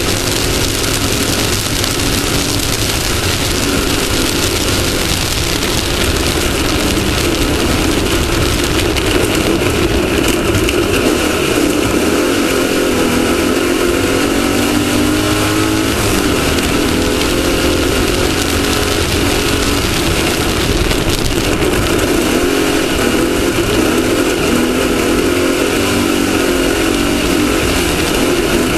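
Off-road race car's engine running hard under load, its pitch rising and falling with the throttle, over a steady wash of wind and driving noise.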